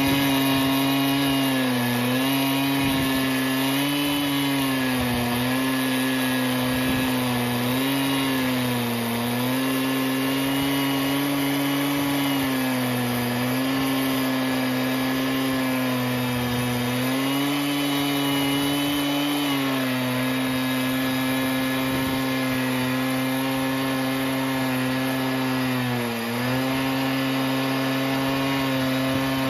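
Stihl MS 880 two-stroke chainsaw on a Logosol F2 chainsaw mill running at high revs under load while ripping a spalted yew log lengthwise. The engine note holds steady but wavers and dips briefly a few times as the cut loads it, most plainly near the end.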